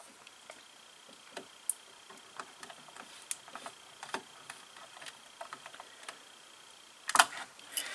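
Faint, scattered light clicks and ticks of a small screwdriver and a wire being worked into a screw terminal on a CNC controller board, with a louder brief rustle about seven seconds in.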